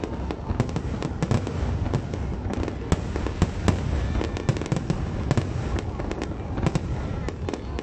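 Aerial fireworks display: a dense run of sharp cracks and bangs from bursting shells, many a second, over a continuous low rumble.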